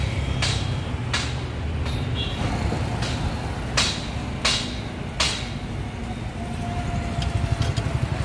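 Wind rumbling on the microphone beside a road, with passing traffic and a handful of sharp clicks or snaps.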